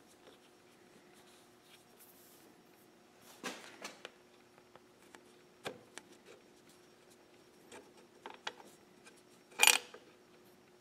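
Light metal clicks and clinks of a lathe apron's feed handle and pin being worked loose by hand, with one louder metallic clunk near the end. A faint steady hum runs underneath.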